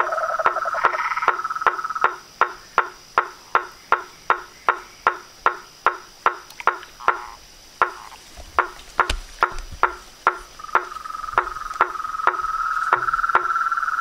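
Frogs calling in chorus: a steady train of sharp clicking calls about three a second, with a trilling call that fades out about two seconds in and starts again about two-thirds of the way through. A faint steady high whine sits underneath.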